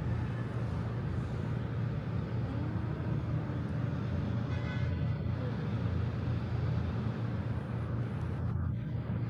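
Steady low rumbling background noise with a hum, unchanging throughout.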